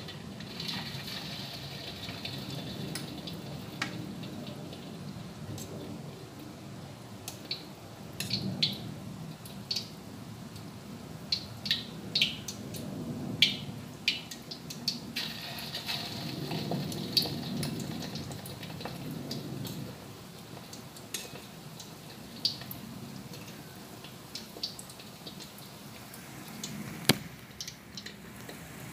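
Potato patties frying in hot oil in a wok, with a steady sizzle. Sharp pops and clicks come and go, thickest in the middle, from spitting oil and metal tongs knocking on the wok.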